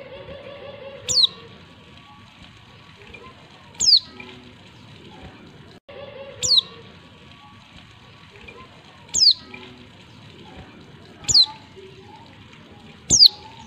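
Female white-eye (pleci) call: a short, very high note sliding quickly downward, repeated six times about every two to two and a half seconds. It is the call used to prompt male pleci to answer and sing.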